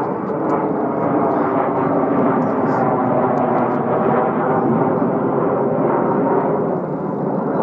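McDonnell Douglas F-15E Strike Eagle's twin turbofan engines: steady, loud jet noise as the fighter flies overhead.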